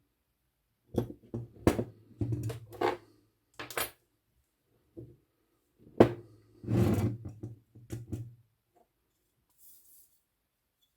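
Olivetti Lettera 22 portable typewriter parts being handled and fitted during reassembly: two runs of clicks, knocks and scraping, the sharpest click about six seconds in.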